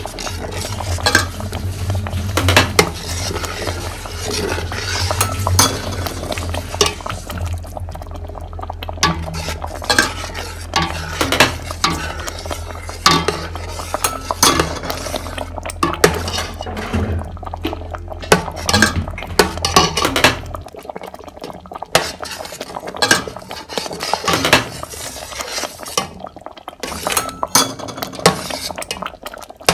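A metal utensil clinking and scraping against cookware as food is stirred and handled, in irregular knocks. A low steady hum runs underneath and cuts off about two-thirds of the way through.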